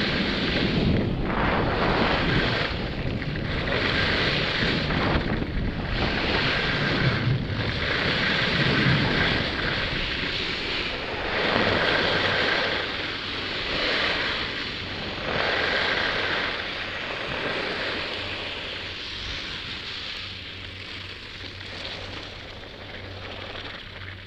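Wind buffeting a helmet-mounted camera's microphone while descending a ski slope, mixed with edges carving on packed snow; the rush swells and eases with each turn. It dies down over the last few seconds as the rider slows to a stop.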